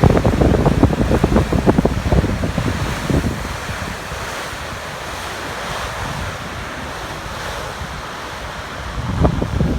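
Strong wind buffets the microphone in low rumbling gusts for the first three seconds and again near the end. In between there is a steady rushing hiss of wind and surf.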